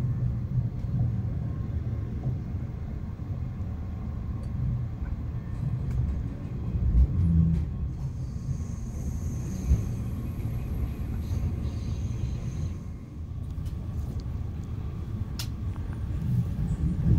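Steady low rumble of a CR200J Fuxing push-pull passenger train running on the track, heard from inside the passenger car, with a couple of short thumps about halfway through.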